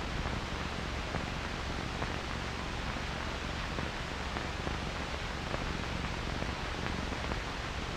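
Steady hiss and low hum of an old film soundtrack, with no other sound.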